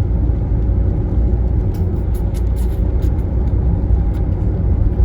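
Steady low rumble of a car being driven, engine and road noise, with a few faint ticks about two to three seconds in.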